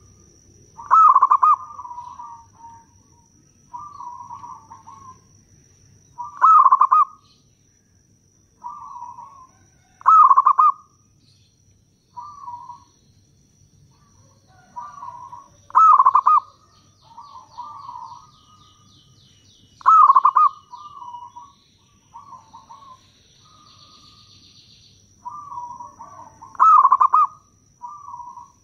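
Zebra dove cooing: six loud, rolling cooing phrases every four to seven seconds, with softer coos between them.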